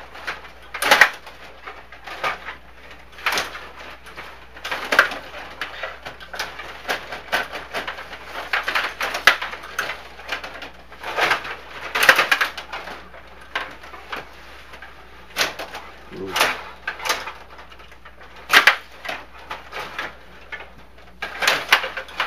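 Hockey game play: irregular sharp clacks and knocks of sticks and puck, coming every second or so, over a low steady hum.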